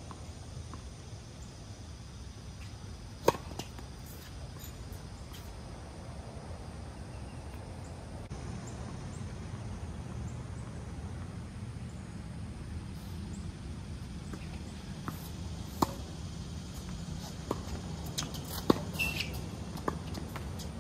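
Tennis balls struck by rackets and bouncing on the court: one sharp crack about three seconds in, then a quick run of hits and bounces over the last five seconds, the loudest near the end, over a steady low background rumble.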